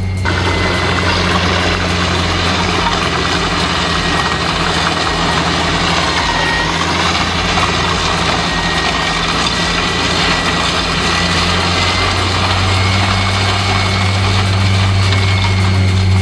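A heavy machine's engine running steadily with a low, even hum, under a broad rushing mechanical noise.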